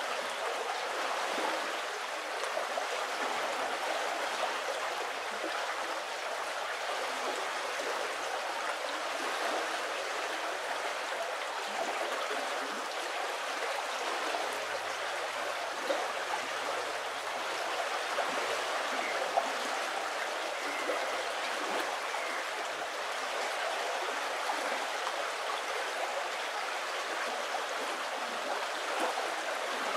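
A shallow river running over a shingle bed, with a steady, continuous rush of flowing water.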